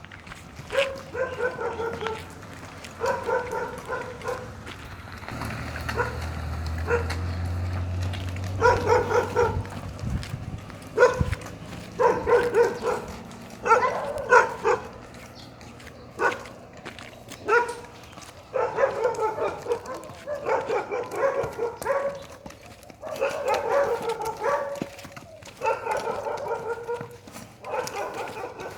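A dog barking and whining over and over, in short yelps and longer drawn-out whines, with a low hum from about five to ten seconds in.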